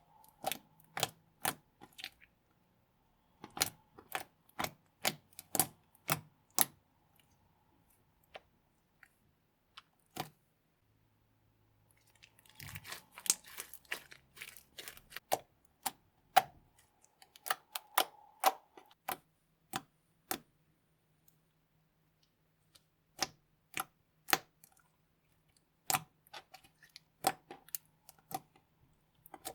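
Slime being pressed and folded by hand, giving sharp clicks and pops of trapped air in irregular clusters, with a denser stretch of crackling about halfway through.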